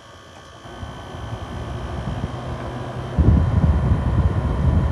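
LG LW6017 6000 BTU window air conditioner's fan speeding up after being boosted to a higher setting: a steady rush of air that grows over a couple of seconds, then jumps to a louder, deeper rush about three seconds in.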